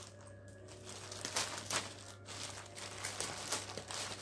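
Plastic courier mailer crinkling and rustling under a hand, quiet at first, then several short rustles from about a second in.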